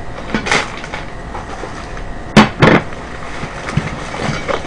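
Cardboard takeout boxes and paper packaging being handled and rustled on a table. Two sharp clacks come close together about two and a half seconds in, with lighter knocks and rustling around them.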